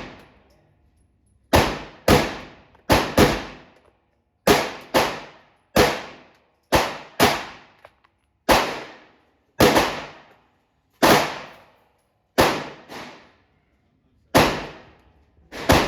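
A pistol firing a slow string of about sixteen single shots, some in quick pairs and some a second or more apart, each a sharp crack with a short ringing tail.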